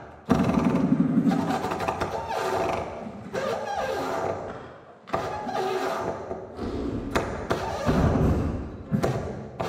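Saxophone and electronics over loudspeakers playing a contemporary piece: a string of rough, noisy sounds that start suddenly and break off, one sliding down in pitch about three and a half seconds in.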